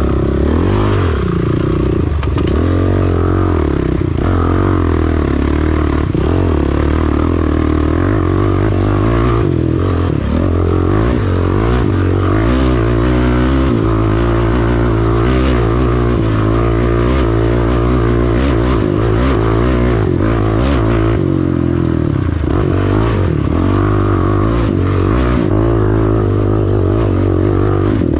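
Red Honda ATV engine running under way on a dirt trail, its pitch rising and falling as the throttle is worked, with clatter and knocks from the machine over bumps.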